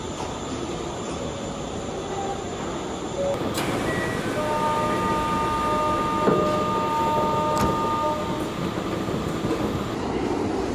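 Kintetsu 80000 series "Hinotori" limited express train at a station platform, pulling out, with a steady rumble. Midway, a chord of steady tones sounds for about four seconds, with a couple of sharp clicks.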